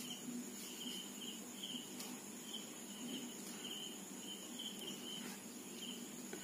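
Faint cricket chirping: short pulsed chirps about twice a second, over a low steady hum.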